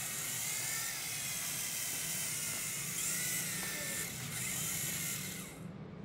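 The electric motors and rotors of a V-Max HX708 two-channel toy RC helicopter whirring in flight, with a high whine that wavers up and down as it is steered. The whirring cuts off about five and a half seconds in as the motors stop.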